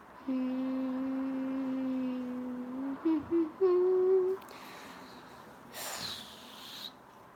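A girl humming with her mouth closed: one long steady low note, then two short notes and a higher held note. A short hissing noise follows about six seconds in.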